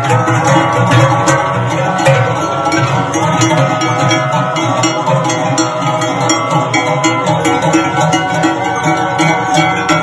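A chorus of large cowbells worn by a herd of walking cows, ringing together as a dense, continuous clangor. Many fixed pitches sound at once, over an uneven rhythmic jangle from the animals' steps.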